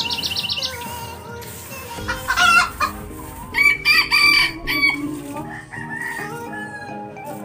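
A rooster crowing twice, about two seconds in and again around four seconds in, over background music.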